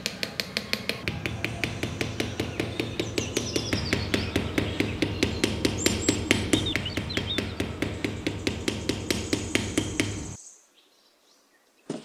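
Rapid, even mechanical clicking or tapping, about five a second, over a steady low hum, with birds chirping in the background. It cuts off abruptly near the end.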